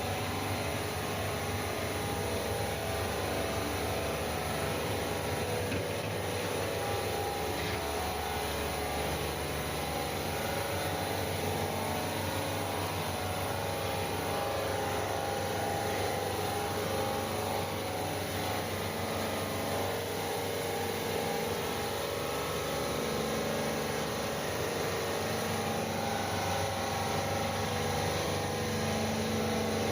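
Cold room refrigeration unit running steadily: the compressor humming under the whoosh of the condenser fan.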